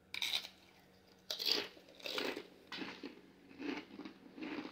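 Crunching and chewing of the Paqui One Chip Challenge tortilla chip, bitten and chewed by two people. Short crisp crunches come about every half second to second.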